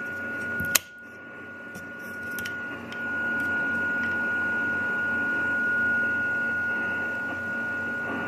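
Audio from a Colibri DDC shortwave receiver on 14 MHz: a steady beat-note whistle from a test carrier over receiver hiss. After a click near the start the hiss drops, then it rises again about three seconds in as the board's contact with its metal box is disturbed. The raised noise floor is a fault that appears when the card sits in its case, a problem the experimenter cannot yet explain.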